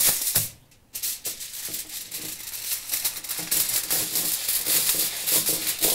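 Aluminium foil crinkling and rustling as it is folded shut into a packet, in a dense run of small crackles with a brief pause about half a second in.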